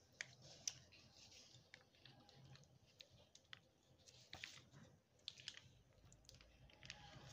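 Near silence with faint, scattered small clicks and light taps: hands pressing chopped nuts and chocolate chips onto the cream-covered sides of a cake.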